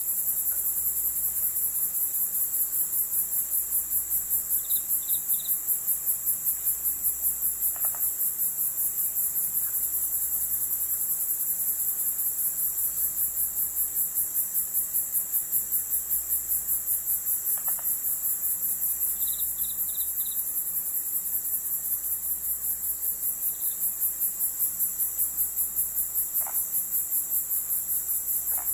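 Night chorus of crickets chirping in a steady, rapid pulse, with a few faint short calls from other animals, including a quick triple chirp a few seconds in and again near the middle.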